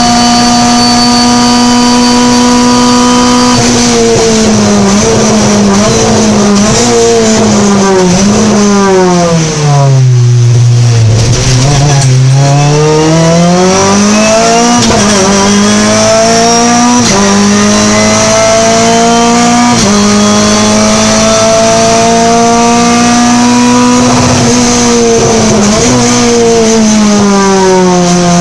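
Renault Clio Cup race car's four-cylinder engine, heard from inside the cockpit. It holds high revs, then drops through a run of downshifts with a short rev jump at each as the car brakes to its lowest revs about ten seconds in. It then pulls up through the gears with sudden drops at each upshift, and steps down through the gears again near the end.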